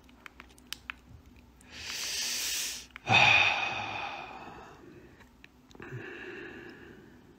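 A man breathing out close to a phone microphone: a breathy exhale about two seconds in, then a louder sigh-like breath about three seconds in that fades away, and a softer one near six seconds, with a few faint clicks at the start.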